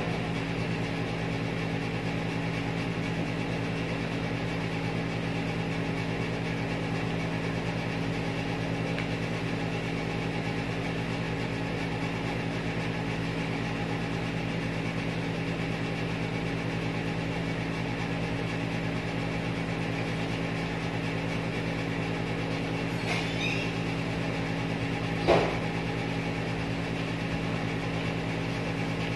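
Steady machine hum made of several even low tones, with a faint click about 23 seconds in and a short, louder knock about two seconds later.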